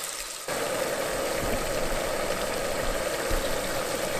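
Battered inland silversides (ghost minnows) deep-frying in hot oil in a fry basket: a steady sizzling that gets suddenly louder and fuller about half a second in.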